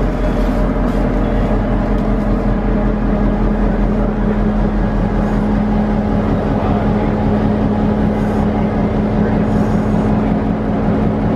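EMD GP38 diesel locomotive with its 16-cylinder 645 engine running with a steady hum and low rumble as it creeps up to the coach to couple.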